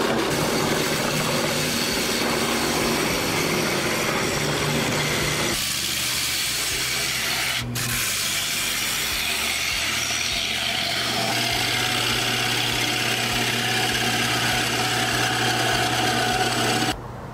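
Woodworking power machinery running and cutting wood, in several short clips that change abruptly about five and a half seconds in and again about two seconds later; the noise drops suddenly near the end.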